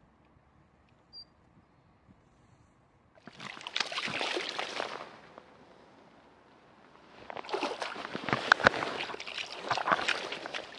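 A released snakehead splashing in the shallows in a burst about three seconds in, then a longer stretch of clothing rubbing and scuffing close to the microphone, full of sharp crackles.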